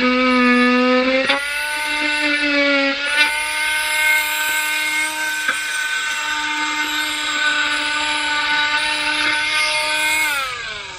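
Handheld electric power saw cutting a wooden board, a steady high-pitched buzz. Its pitch steps up slightly about a second in, and it winds down near the end as the tool is switched off.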